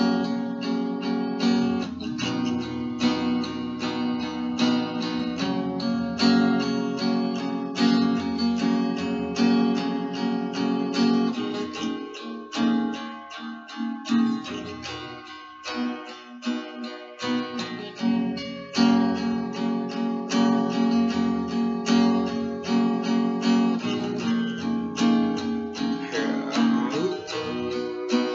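Acoustic guitar strummed in a steady rhythm, chord after chord, as the instrumental passage of a solo acoustic song.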